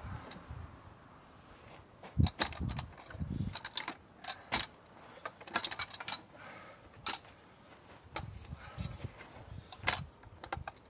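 Irregular metallic clinks, clicks and rattles with a few dull thumps, like metal tools being handled and knocked together.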